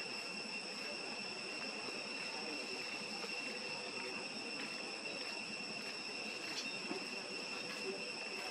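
Insects droning steadily at a constant high pitch, an unbroken background trill.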